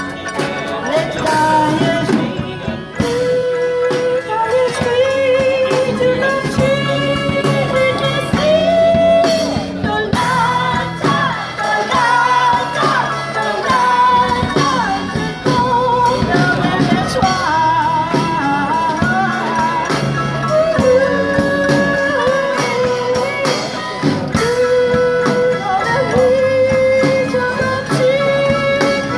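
Small acoustic street band playing a song: a woman sings a wavering melody into a microphone, with other band members singing along, over toy pianos, strummed ukulele, banjo and guitar and a drum kit.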